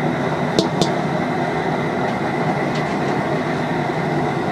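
Steady rushing noise of a propane burner firing under a large stockpot, with two faint clicks a little over half a second in.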